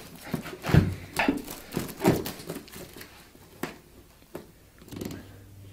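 A large kitchen knife sawing and scraping at a product box's plastic wrap and cardboard: a series of short scrapes and knocks in the first couple of seconds, then a few faint clicks as it goes quieter.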